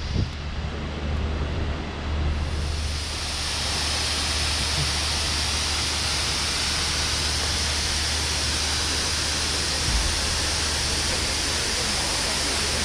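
A cruise boat's engine hums low and steady under a rushing noise, which swells about two and a half seconds in and then holds even.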